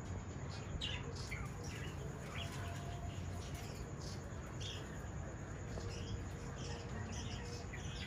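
Caged birds chirping softly: short, scattered calls throughout, over a low steady hum.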